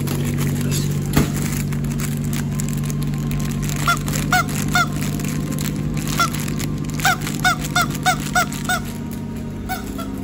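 A series of short honking calls, about eleven in all: three close together, a single one, a quick run of six, then one more near the end, over a steady low hum.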